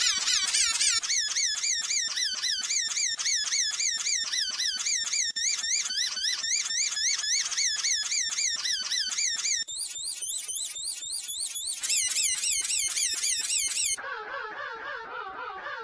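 Electronically processed wheezing sound, stacked into many pitch-shifted copies that each waver rapidly up and down in pitch, so together they sound like a chorus of sirens. The layering changes twice in the latter half, and near the end it drops to a lower, quieter set of wavering tones.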